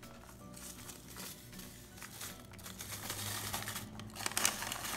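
Cardboard box of Jiffy corn muffin mix crinkling as it is tipped and the dry mix pours into a glass casserole dish. The rustle grows louder about halfway through, with a few sharp ticks near the end.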